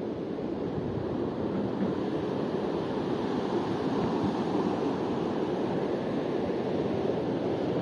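The fast, turbulent Mur river rushing, a steady even noise of churning water that grows slightly louder over the first couple of seconds.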